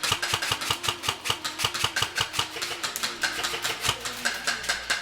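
Specna Arms SA-E23 Edge 2.0 airsoft electric rifle (AEG) firing a long string of shots, about six to seven a second, stopping at the very end.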